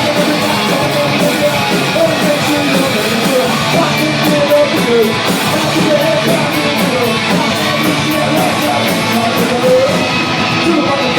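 Live rock band playing loud, distorted electric guitars over bass and drums, with wavering melodic lines that could be a voice or a lead guitar; the room adds reverberation.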